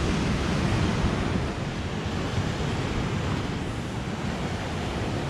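Ocean surf breaking and washing over a rocky shore in a steady rush, with wind buffeting the microphone.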